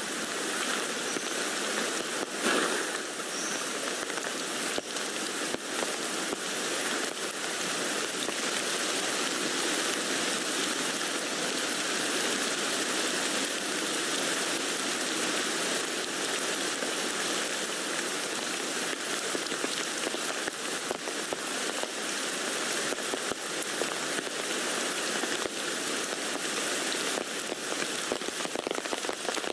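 Rain falling steadily on a tent: an even hiss studded with many small drop ticks, with one brief louder thump about two and a half seconds in.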